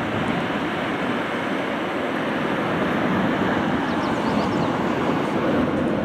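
Boeing 747-8 freighter's four GEnx jet engines, a steady rushing roar as the jet rolls out along the runway just after touchdown.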